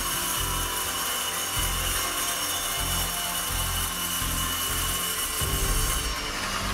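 Ryobi circular saw with a 40-tooth carbide-tipped blade cutting through a polycarbonate window panel: a steady high whine over a rasping hiss. The high hiss drops away about six seconds in.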